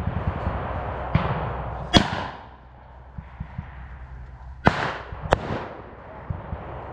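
Scattered gunshots from blank rounds: four sharp reports, the loudest about two seconds in and a pair half a second apart near the end, each echoing briefly. Low knocking and rumble sit close to the microphone throughout.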